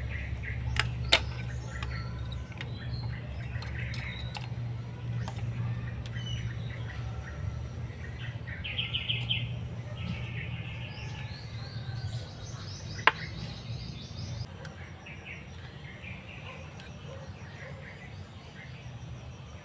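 Birds chirping over a low steady rumble that fades about two-thirds of the way through, with a few sharp clicks, two close together near the start and a louder one later.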